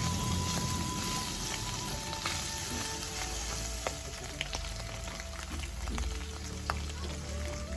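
Diced pork belly frying in hot fat in a pan: a steady sizzle with scattered sharp pops of spitting fat, the pieces turned with a metal spatula in the first few seconds.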